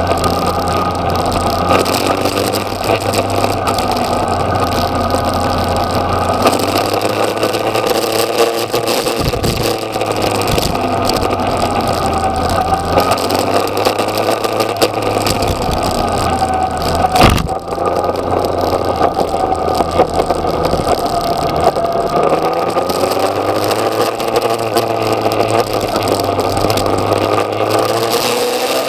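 Yamaha XJ6's 600 cc inline-four engine running on the move, its revs rising and falling again and again, over a steady rush of wind noise. A single sharp knock comes a little past halfway.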